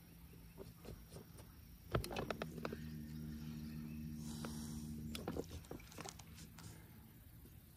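Electric trolling motor running in a short burst of about three seconds, a steady hum that starts with a cluster of clicks and knocks about two seconds in and cuts off about five seconds in. Scattered light knocks around it.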